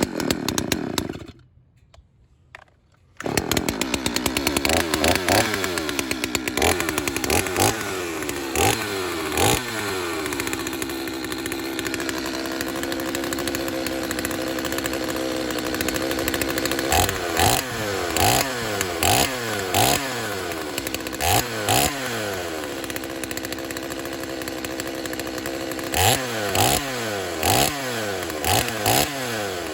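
Stihl 025 two-stroke chainsaw running after a brief silence near the start, revving up and down repeatedly. It is held at steady high revs for several seconds in the middle, then blipped to full throttle about once a second, as the freshly tuned and sharpened saw is put through test cuts.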